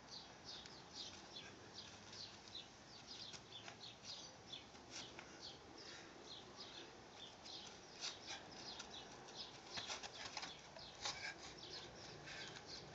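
Faint chirping of small birds: many short, high chirps, several a second at an irregular pace.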